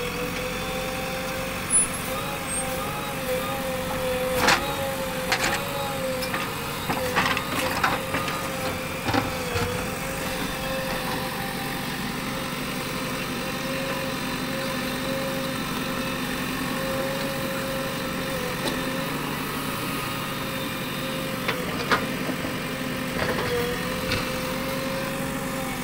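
JCB 3DX backhoe loader's diesel engine running steadily as the backhoe digs into a heap of earth and stones, its pitch wavering slightly with the load. A few sharp knocks stand out, the loudest about four seconds in.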